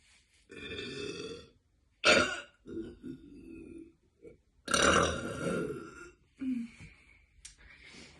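A woman burping several times in a row. A sharp, loud burp comes about two seconds in, and a long, loud one follows at about five seconds, with smaller burps between and after.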